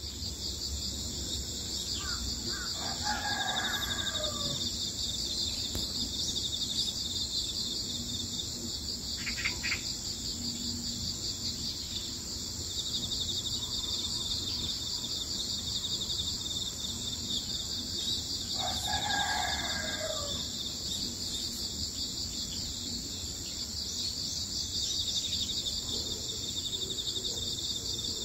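Crickets chirping in a steady, fast trill, with a rooster crowing twice, about three seconds in and again about nineteen seconds in. A brief bird call comes near ten seconds.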